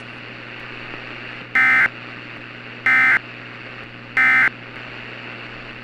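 Emergency Alert System end-of-message data tones: three short, identical buzzes of digital SAME code about a second and a quarter apart. A steady radio hiss with a low hum runs underneath.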